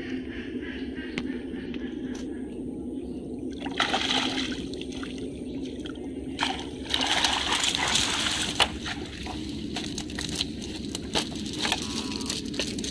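Water sloshing and splashing as a cast net is gathered up by hand in shallow water, loudest in bursts about four seconds in and again from about seven to nine seconds, over a steady low hum.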